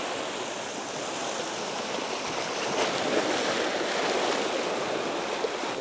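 Sea waves washing and breaking over low volcanic shore rocks, a steady rush of surf with slight swells.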